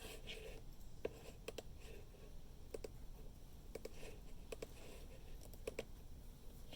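Scattered clicks of computer keys or buttons being pressed at a desk, about a dozen, several in quick pairs, over faint room hum.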